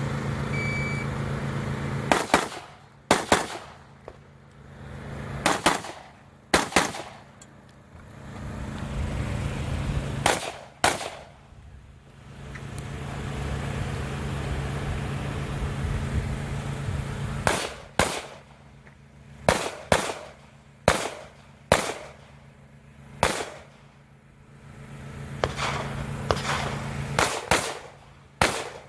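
A shot-timer beep, then a course of fire of about twenty gunshots: singles and quick pairs with pauses of several seconds between strings.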